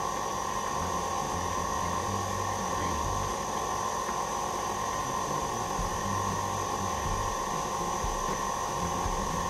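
Electric stand mixer running steadily with a scraper-edge beater, beating vanilla extract into Swiss meringue buttercream. It gives a constant motor whine over a low rumble that rises and falls slightly as the beater turns through the icing.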